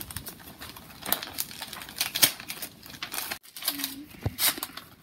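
Gift-wrapping paper crinkling and rustling as a small present is unwrapped by hand, in irregular crackles.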